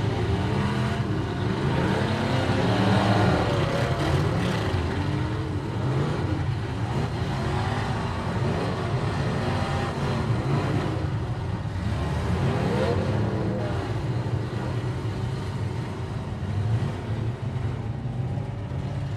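Demolition derby cars' engines running together in a steady drone, with several revving up and down in pitch over one another.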